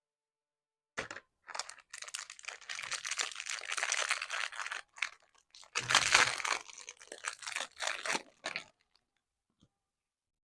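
Crinkly plastic packaging being torn open and crumpled, in dense crackling bursts with a few short pauses, stopping a couple of seconds before the end.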